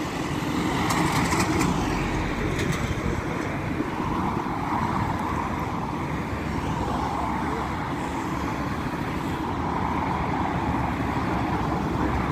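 Steady rumble and hiss of a taxiing Air Canada Boeing 777's twin GE90 jet engines at low idle thrust, swelling and easing slightly as it rolls past.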